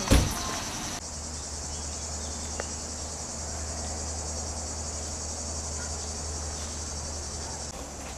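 A steady, high-pitched chorus of insects shrilling in summer heat, with a sharp thump right at the start and a low steady hum underneath from about a second in.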